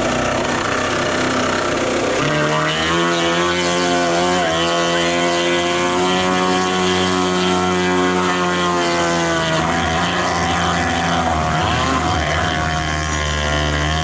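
Homemade jet-drive surfboard's two-stroke engines with expansion chambers running under load. The pitch rises about two seconds in, holds steady, then falls near ten seconds to a lower steady note. The owner thinks the engines were not running properly.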